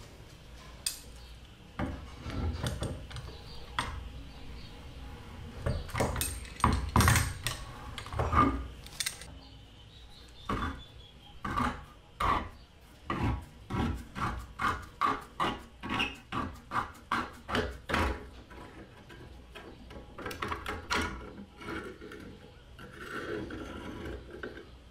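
Hand scraping on a rusty steel airgun tube: a run of separate rubbing, scraping strokes, coming evenly at about two a second through the middle stretch as rust is worked off the metal.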